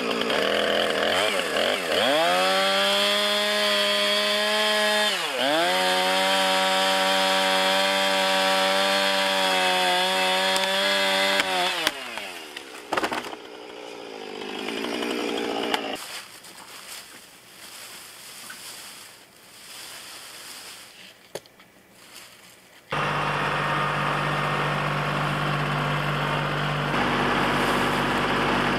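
Gas chainsaw running at full throttle through a tree trunk to finish a felling cut, its pitch dipping briefly about five seconds in. About twelve seconds in it drops off as the tree goes over, with a few sharp cracks, then a quieter stretch. About twenty-three seconds in a compact tractor's engine takes over, idling steadily.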